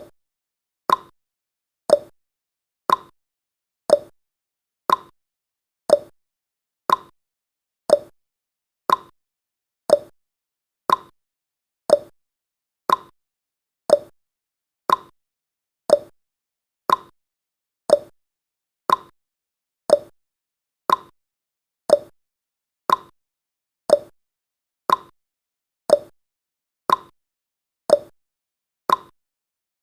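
Countdown timer's ticking sound effect: one sharp, short tick every second, with silence between the ticks.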